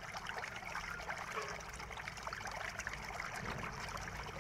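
Steady, quiet crackling background noise with no clear source.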